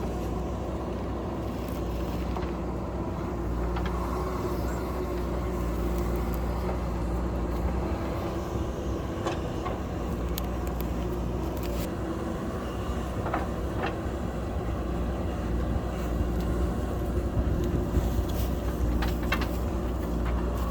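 JCB backhoe loader's diesel engine running steadily under work, with a few short sharp metallic knocks now and then.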